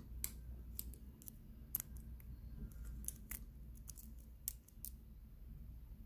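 Soft, irregular metallic clicks and ticks, about two or three a second, as a lock pick probes the pin tumblers of a Guard 834 brass padlock, testing each pin for binding while the core is held under tension.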